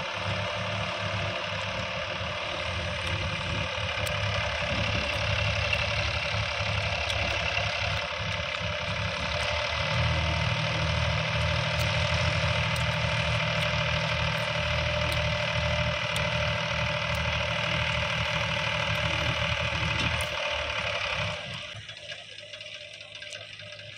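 Sonalika DI 750 tractor's diesel engine running with a steady knocking beat. It works harder from about ten seconds in while the hydraulic lift tips the loaded trailer, then eases off shortly before the end.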